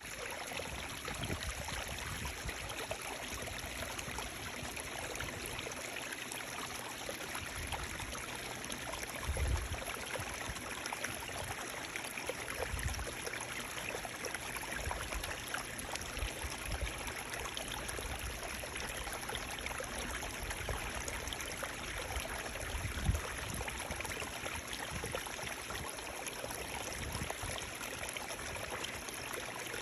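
Running water flowing in a steady rush, like a stream. A couple of brief low thumps cut through, about a third of the way in and again about three quarters of the way through.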